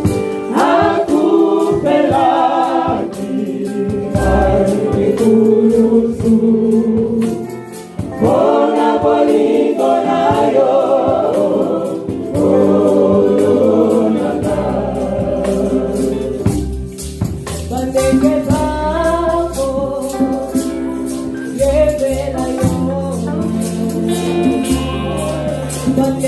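Gospel choir singing a worship song with band accompaniment: a bass line that comes in about halfway through and a shaken percussion rattle such as a tambourine.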